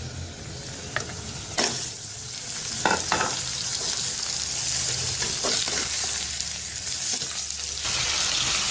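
Raw boneless chicken pieces sizzling as they go into hot oil with lightly fried onions in a steel pot and are stirred. The sizzle grows louder after about two seconds, with a few sharp clicks along the way.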